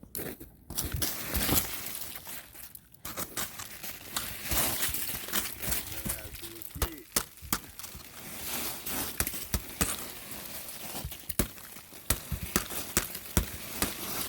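Footsteps crunching and cracking through snow frozen into a hard crust of ice, a dense run of crackling crunches.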